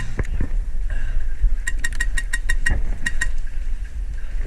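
Airsoft guns firing in quick runs of sharp pops, about eight shots around two seconds in and a short run of three just after, over a steady low rumble.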